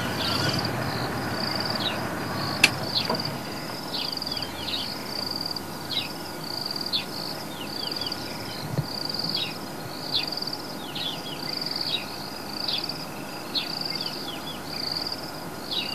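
A small animal's high, buzzy chirping call repeated a little faster than once a second, each call a short trill followed by quick downward-sliding notes. A single sharp click comes about three seconds in.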